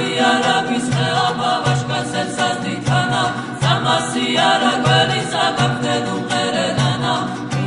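Choral song: a group of voices singing together in harmony, with repeated low bass notes underneath.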